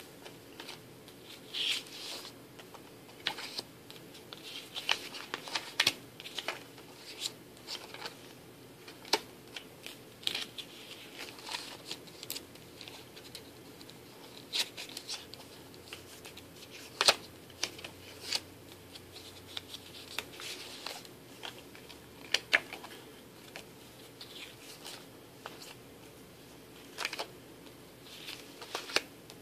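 Paper pages of a disc-bound scrapbook being turned and handled: irregular rustles of paper with scattered sharp clicks as the pages move on the binding discs.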